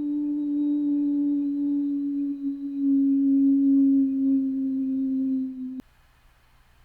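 Tornado warning siren holding a low, steady tone that slowly sags in pitch, then cuts off suddenly about six seconds in, leaving only faint hiss.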